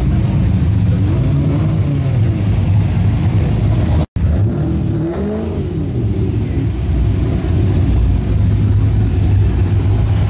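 Performance cars driving past with their engines revving, the engine note rising and falling over a constant low rumble. The sound cuts out for an instant about four seconds in.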